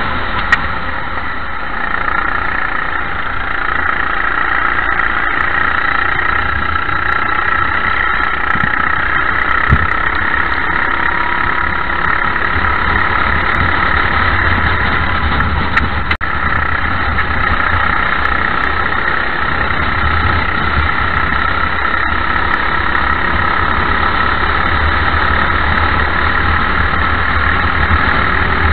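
Racing kart engine heard from onboard, running continuously at racing speed with small rises and falls in pitch, over a deep steady rumble of wind on the microphone. The sound dips briefly once, about two-thirds of the way through.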